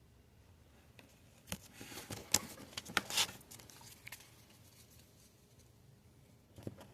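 Trading cards being handled: a cluster of sharp taps and papery swishes, loudest between about one and a half and four seconds in.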